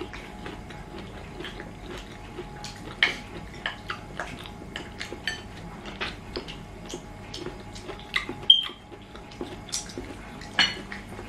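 Metal fork clinking and scraping on a ceramic bowl during a meal, with small chewing sounds between bites. The clicks come irregularly, a few sharper than the rest.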